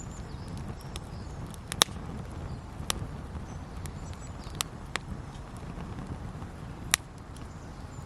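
Wood campfire burning, with about five sharp, irregular pops and cracks from the burning wood over a steady low rumble.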